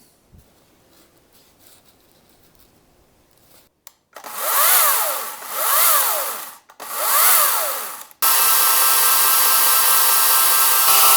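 Wen 40V cordless electric chainsaw running unloaded to work freshly added thin oil through the bar and chain. About four seconds in come three short trigger pulls, each spinning the motor and chain up and letting them wind back down. The saw is then held at a steady full speed.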